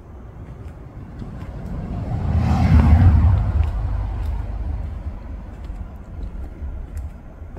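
A car passing by: its engine rumble and tyre noise swell to a peak about three seconds in, then fade away.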